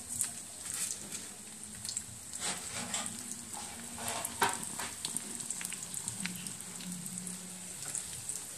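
Sun-dried goby fish frying in hot oil in a steel wok: a steady sizzle with scattered crackles and pops. Near the end, chopsticks stir the fish.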